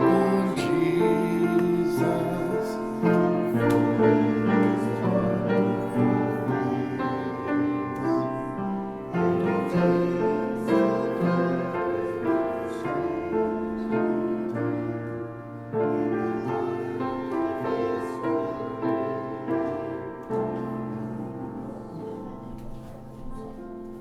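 Slow, gentle piano music playing sustained notes and chords, fading out gradually toward the end.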